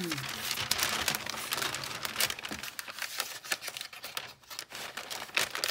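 Brown kraft packing paper crinkling and rustling as it is handled and pulled aside, a dense run of quick crackles that eases off briefly about four seconds in.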